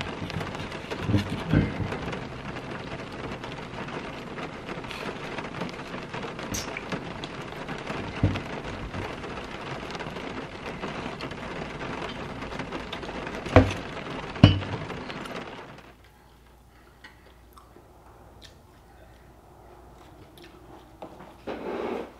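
Steady rain on a car, heard from inside the cabin, with a few sharp thumps over it. About sixteen seconds in the rain sound cuts off, leaving a much quieter room.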